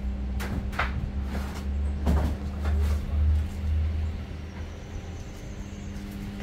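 Irregular knocks and rustles, several in the first three seconds, over a heavy low rumble and a steady low hum.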